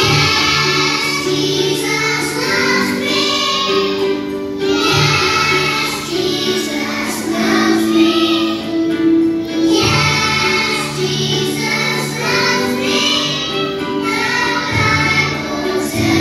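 A group of young children singing a song together in unison, with instrumental backing music holding steady low notes beneath the voices.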